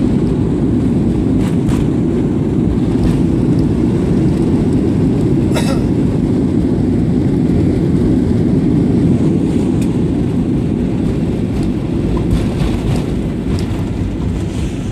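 Cabin noise of a jet airliner decelerating on the runway just after touchdown, ground spoilers raised: a loud, steady rumble from the engines and the rolling wheels, with a few light rattles. It eases off slightly near the end as the aircraft slows.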